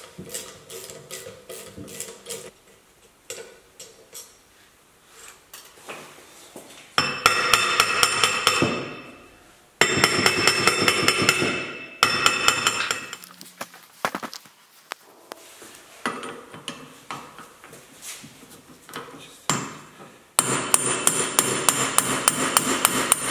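Runs of rapid metal-on-metal hammer blows, several a second, ringing on the steel wheel carrier of a Porsche 911 rear trailing arm as the wheel bearing and hub are driven out. The blows come in four bursts, with lighter clicks and taps before the first.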